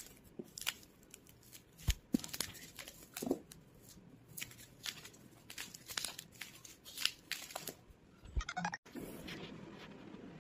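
Plastic bubble wrap rustling and crinkling as it is pulled off a cardboard gift box, with irregular crackles and a couple of louder knocks of the box about two seconds in.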